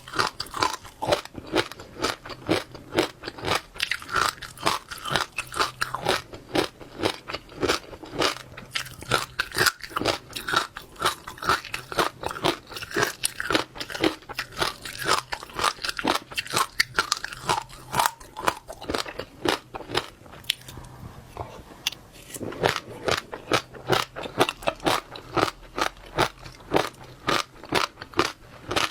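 Close-miked chewing of wet passionfruit seeds, the seeds cracking and popping in rapid, crowded crunches, with a brief lull about two-thirds of the way through.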